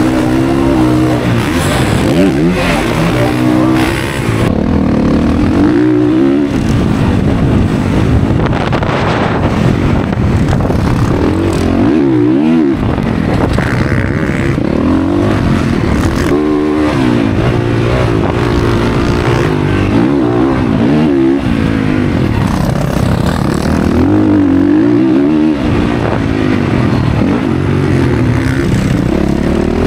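Dirt bike engine being ridden hard, its revs rising and falling again and again as the throttle is worked.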